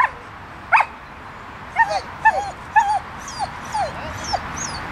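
A dog gives two sharp barks, then a quick run of short, high whining yelps, about three a second.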